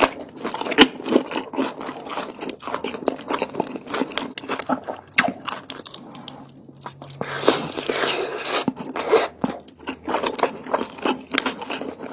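Close-miked eating of a crispy fried birria taco: repeated crunching bites and chewing with wet mouth sounds, easing off briefly just past the middle, then a dense burst of crunching.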